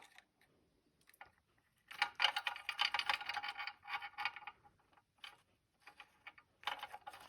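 Rapid light metallic clicking in two spells, from tools and metal parts being worked while a new oil nozzle is fitted to the burner of an oil-fired boiler.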